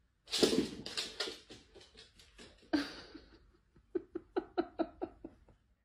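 Dog's claws clattering and scrabbling on a wooden floor as it scrambles off, a quick run of taps, then a second, sparser run of sharp taps near the end.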